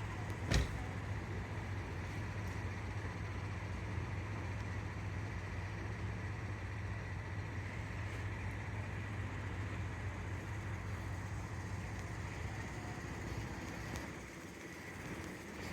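A vehicle engine idling steadily, with a single sharp knock about half a second in; the hum drops away near the end.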